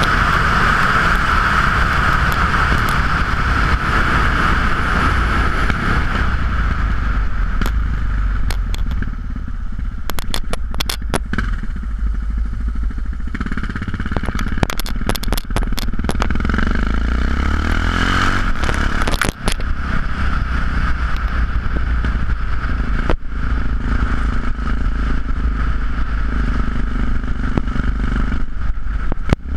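Yamaha XT660X single-cylinder engine running through Leo Vince aftermarket exhausts while riding, heard from a bike-mounted camera. The engine note rises and eases with the throttle, with wind noise and scattered clicks and rattles.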